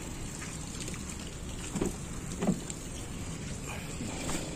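Steady hiss of light rain, with two short soft knocks about two seconds in.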